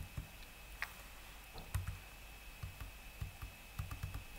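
Computer keyboard keys pressed a number of times: short, quiet clicks at irregular spacing, with a faint steady high-pitched whine underneath.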